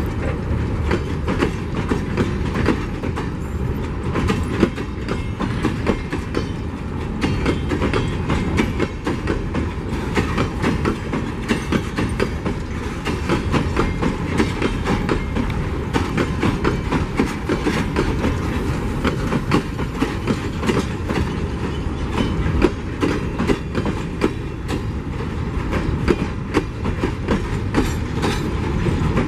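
Empty steel mining hopper cars of a long freight train rolling past, a steady rumble with a dense clatter of wheels over the rail joints.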